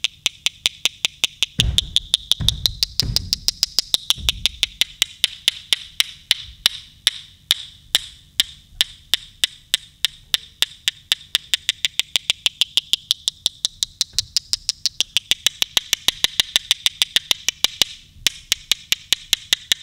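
Percussive stage music: a fast, even clicking beat like a wood block, over a high sustained tone that swells and drifts. A few low drum strikes come in about two to four seconds in.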